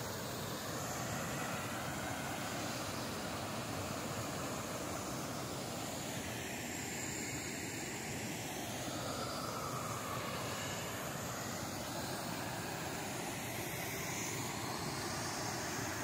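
Steady rushing roar of a waterfall pouring into a rock pool, an even noise that holds at one level throughout.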